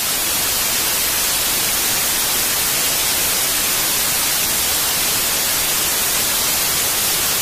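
Television static: a steady, loud, even white-noise hiss, brightest in the treble.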